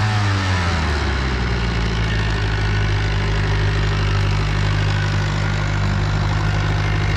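MerCruiser sterndrive boat engine running out of the water, cooled by a garden hose on flushing muffs. Its pitch drops back from a rev during the first second, then it holds a steady idle.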